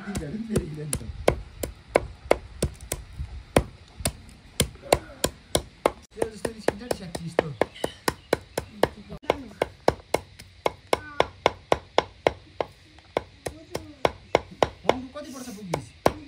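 Cleaver chopping raw chicken and its bones on a wooden stump chopping block, mincing them fine: a steady run of sharp knocks, about four a second.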